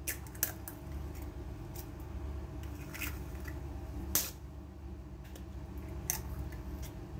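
Raw eggs cracked against the edge of a kitchen knife over a stainless steel bowl: a series of sharp clicks and taps of blade on shell, the loudest about four seconds in, over a steady low hum.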